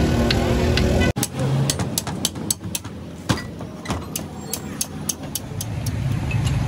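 Steady street traffic hum for about a second, then a sudden cut to many light, sharp metal taps at an irregular pace of a few a second: a hammer tapping on the steel body and cap of a hydraulic jack.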